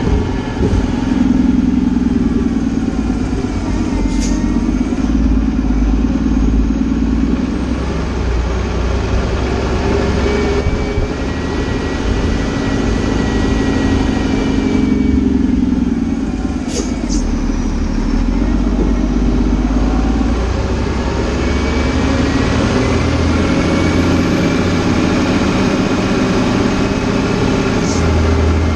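Fire engine's diesel engine running as the truck drives, its note dropping and picking up again a few times as it slows and accelerates. Three brief sharp clicks stand out over it.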